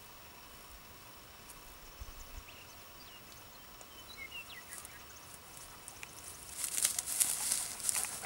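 Alaskan Malamute puppy panting and sniffing close to the microphone, a rapid hissy breathing that starts loud about two-thirds of the way in, after a quiet stretch with a few faint high chirps around the middle.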